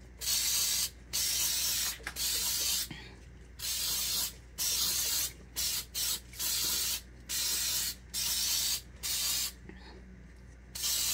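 Hand-held spray bottle of Cake Craft edible colour spray squirting onto a frosted cake: about a dozen short hissing sprays in a row, each up to about a second long, with brief pauses between them.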